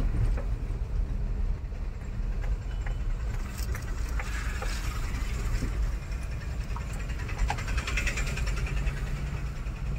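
Tata Intra V30 pickup's engine running and tyre and road noise heard from inside the cab while driving: a steady low rumble.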